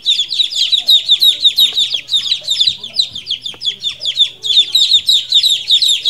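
Young chicks peeping, a loud, rapid run of short, high, downward-sliding peeps, several a second, without a break.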